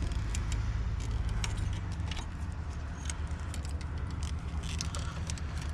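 Scattered light metallic clicks and clinks of hand tools on parts in a car's engine bay, over a steady low hum.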